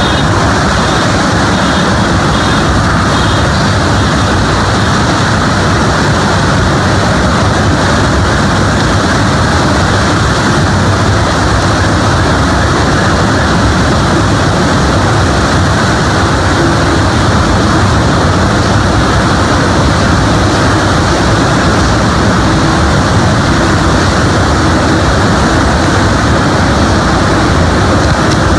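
Typhoon-force wind and driving rain: a loud, steady rushing roar that does not let up.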